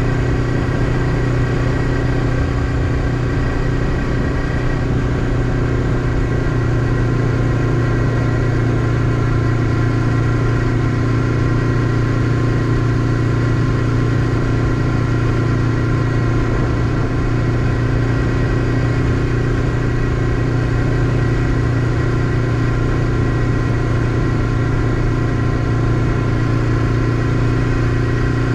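Honda CBF500's parallel-twin engine running at a steady cruising speed, heard from on the motorcycle, its note holding one even pitch with no shifts or revs.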